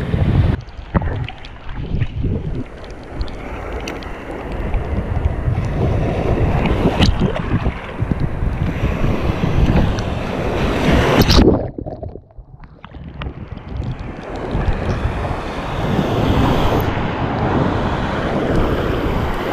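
Ocean surf breaking and washing around a wader, with wind buffeting the microphone. The wash swells and fades; about twelve seconds in, after a loud surge, the sound turns muffled and drops away for a moment before the surf comes back.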